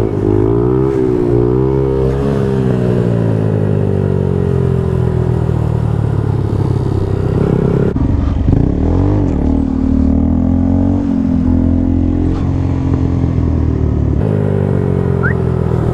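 Honda Grom's small single-cylinder engine running while it is ridden, revving up and down twice in quick throttle blips at first, then easing off and holding fairly steady, with another short rev about halfway.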